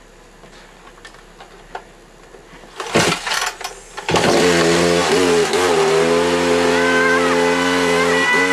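Two-stroke chainsaw being pull-started: a short burst of starter-cord pulls about three seconds in, then the engine catches about a second later and runs steadily and loud, dipping briefly in speed twice.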